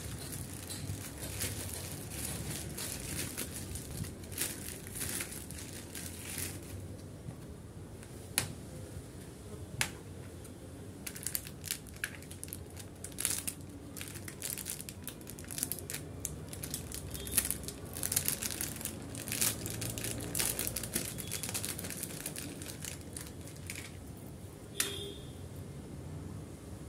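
Plastic packaging crinkling as it is opened by hand: a white plastic courier mailer and the clear plastic packet inside it. Irregular sharp crackles throughout, densest in the middle.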